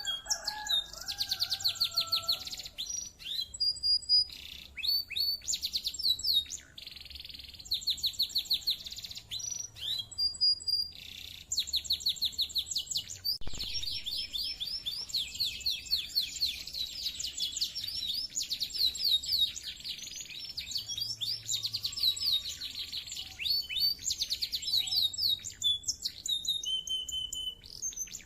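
Domestic canary in full song: long fast trills, rolls of rapidly repeated high notes, with short breaks between phrases.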